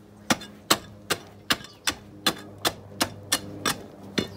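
Hammer driving nails into the wooden frame of a cow shed: about eleven sharp, evenly spaced blows, two or three a second.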